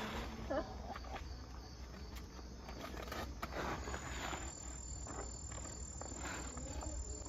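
Crickets and other night insects chirping, with a thin steady high trill coming in about halfway through, over faint scattered rustles and taps of handling.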